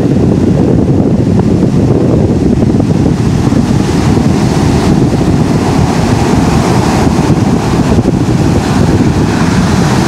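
Heavy ocean surf breaking and washing onto a sandy beach in a continuous loud roar that swells at times, with wind buffeting the microphone.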